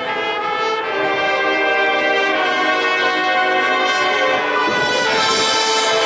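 Marching band brass playing long sustained chords, swelling louder about a second in. A high hiss joins about five seconds in.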